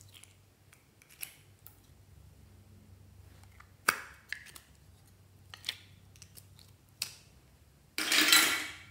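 A few sharp, separate clicks of small plastic slime containers being handled and squeezed. Near the end comes a louder, noisy squish lasting nearly a second as a lump of pink slime is pulled out into the glass dish.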